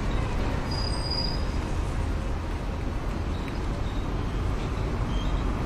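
Outdoor street ambience: a steady low rumble and hiss, with a faint brief high tone about a second in.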